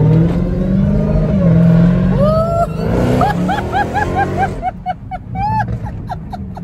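Dodge Hellcat's supercharged 6.2-litre V8 accelerating hard, its note climbing in pitch over the first second with a loud rush that drops away about four and a half seconds in. Over it, a passenger whoops a couple of seconds in, then laughs in quick bursts.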